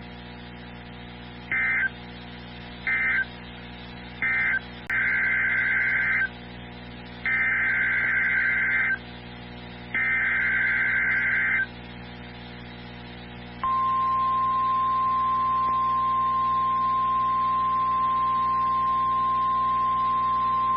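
NOAA Weather Radio SAME alert data: three short buzzy end-of-message bursts, then three longer bursts of warbling digital header tones, each set about a second apart. About two-thirds of the way in, the steady, piercing 1050 Hz weather-radio alert tone starts and holds unbroken.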